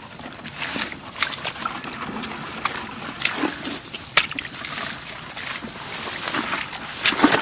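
Shallow water sloshing and splashing in irregular bursts, with a few sharper splashes, as someone works by hand in the water.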